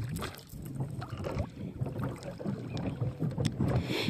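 Wind buffeting the microphone, with water lapping and scattered small clicks and knocks.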